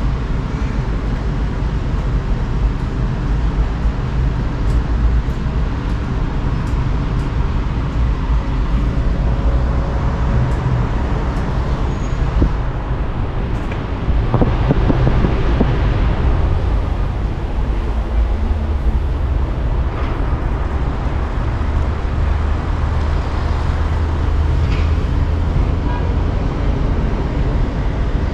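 Steady low rumble of a running vehicle with a constant wash of noise over it, growing a little louder about halfway through.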